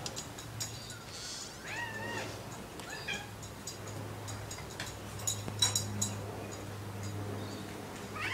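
Domestic cat meowing in a few short calls, one near the start, one shortly after and one near the end, with a few light clicks in the middle over a low steady hum.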